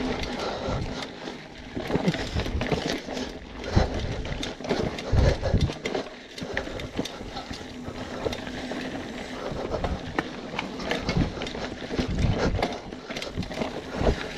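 BMC Twostroke AL 2 hardtail mountain bike ridden over rough dirt singletrack: tyres rolling on the trail with frequent sharp rattles and knocks from the bike as it goes over bumps, and occasional heavier thumps.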